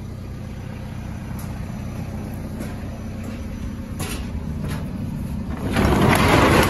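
Steady low rumble of an idling vehicle engine, with a few faint clicks and a louder rushing noise for about a second near the end.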